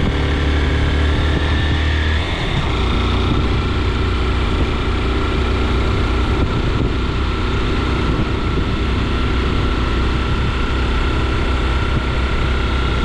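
A vehicle's engine running steadily on the move, with road noise; the engine note changes about two seconds in.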